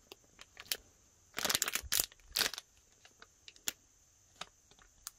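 Clear cellophane packaging bag crinkling as it is handled and opened to take out a foam squishy toy, with a couple of short rustling bursts about one and a half to two and a half seconds in and scattered light clicks.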